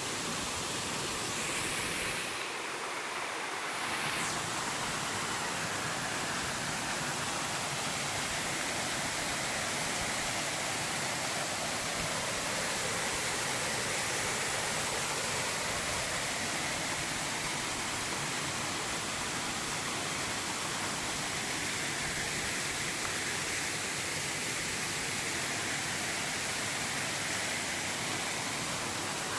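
Waterfall and river rushing, a steady full hiss of falling and flowing water that turns briefly thinner and hissier about two seconds in.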